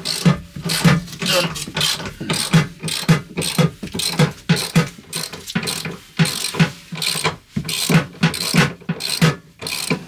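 Socket-set ratchet clicking in a steady rhythm, about three clicks a second, as a long seat-mounting bolt is backed out.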